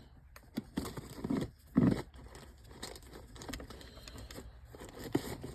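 Handling noise of a compression tester's threaded fitting being screwed by hand into a chainsaw's spark plug hole: small irregular clicks, scrapes and rattles of metal parts, with a louder knock about two seconds in.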